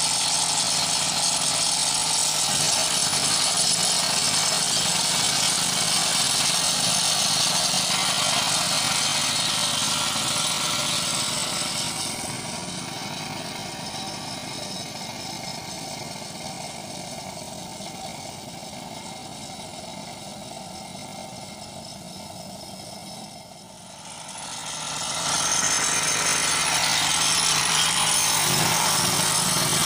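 Small petrol engine of a wheeled road-marking paint sprayer running steadily, with a strong hiss. It is quieter through the middle and louder again near the end.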